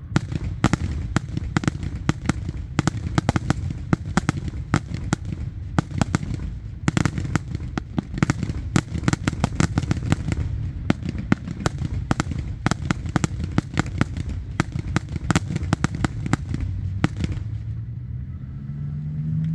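Fireworks and firecrackers going off in a dense barrage: sharp bangs and crackles, many a second, over a low rumble. Near the end the bangs stop and a low hum rises in pitch.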